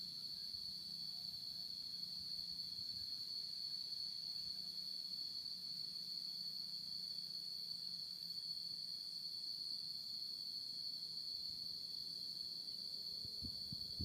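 Insects buzzing: one continuous high-pitched drone that holds steady throughout.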